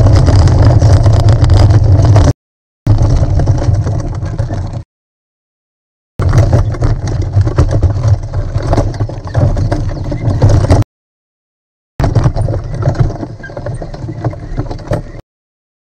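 Wheels of a folding wagon rolling over a paved path and then gravel and dirt, heard as a loud low rumble and rattle through a camera mounted on the wagon itself. The sound cuts off abruptly into dead silence several times and starts again.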